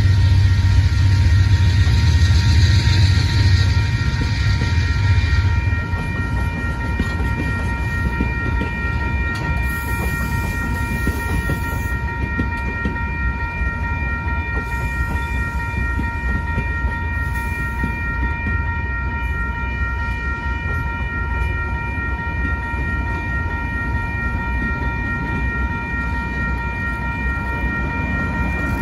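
Amtrak passenger cars rolling slowly over a grade crossing, their wheels rumbling and clattering on the rails, louder for the first few seconds and then steady. Through it a railroad crossing signal bell rings steadily.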